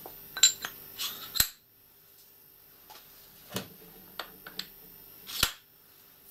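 Metal railway wheels and axles being handled and set down on a wooden workbench: a string of knocks and clacks, bunched in the first second and a half, then a few spaced out later.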